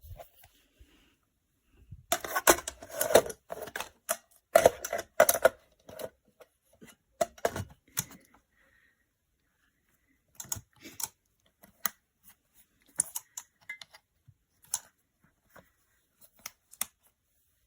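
Handling noises: sharp clicks and knocks, in clattering clusters during the first eight seconds, then sparser single clicks.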